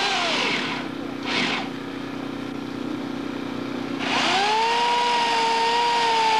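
An engine idling with a steady low hum and a short hissing burst about a second in. About four seconds in it is revved up and held at high speed, then cuts off abruptly.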